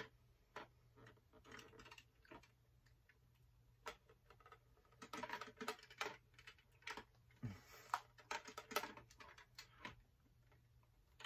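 Faint, scattered clicks and taps of a plastic gift card maze box being tilted and handled, in short bunches, as its ball is rolled through the maze.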